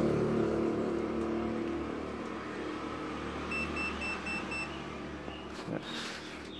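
A motor vehicle's engine running nearby and fading away. About halfway through comes a run of five short, high electronic beeps.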